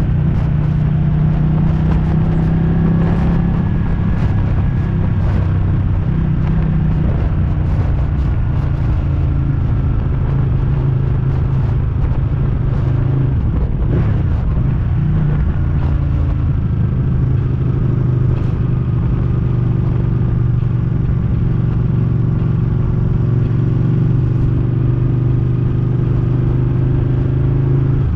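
Ducati Panigale 899's L-twin engine running at a steady riding speed, with a brief dip and rise in engine pitch about halfway through.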